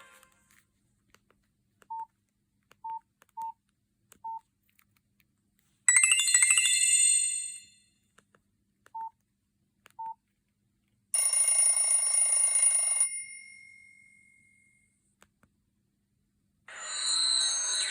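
Nokia 5220 XpressMusic phone's loudspeaker playing short preloaded ringtones one after another: a bright chime about six seconds in that fades out, a buzzy tone about eleven seconds in that trails off, and another tone starting near the end. Short single beeps sound in the gaps between them.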